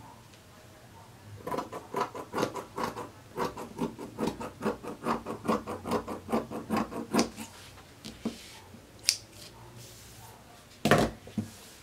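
Scissors cutting through fabric in quick, repeated snips, about three or four a second for some six seconds, then stopping. Near the end comes a single loud knock.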